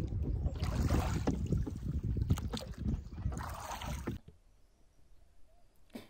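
Wind buffeting the microphone and water splashing against the hull of a small boat out on a lake, a loud rumbling rush with irregular knocks and splashes. It stops abruptly about four seconds in, leaving only a faint, quiet outdoor background.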